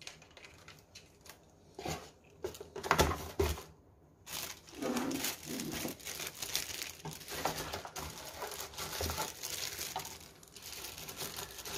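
Clear plastic bag wrapping an LED spotlight rustling as the light is picked up and handled, with a few knocks in the first few seconds.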